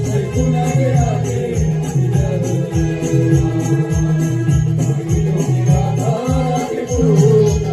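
Traditional naman folk music: a steady drum beat with small cymbals ticking along, under a sustained melody that wavers in pitch.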